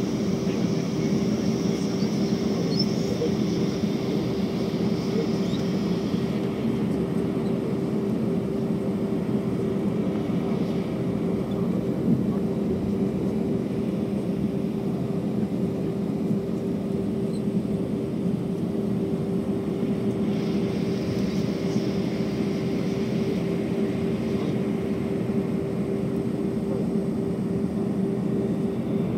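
Steady cabin noise inside a jet airliner taxiing, its engines at idle: a low, even drone with a constant hum tone. A faint higher hiss comes and goes twice.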